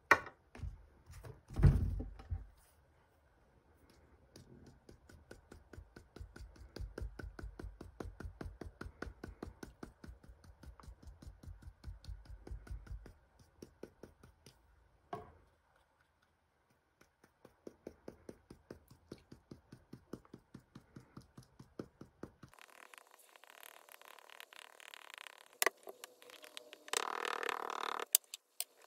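Felt-pad alcohol ink applicator dabbed over and over against a plastic tape dispenser: long runs of soft, even taps, about three a second. There is a sharp knock or two near the start and a stretch of rustling, rubbing noise near the end.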